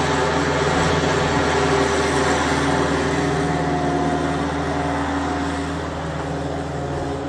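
Thomas 153 skid steer's engine running steadily as the machine digs through snow with its bucket, a constant drone that eases slightly in level near the end.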